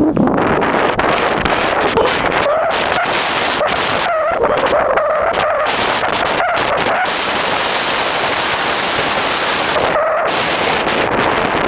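Storm wind buffeting the microphone, with a wavering whine that rises and falls in pitch, heard off and on between about two and seven seconds in and again near ten seconds.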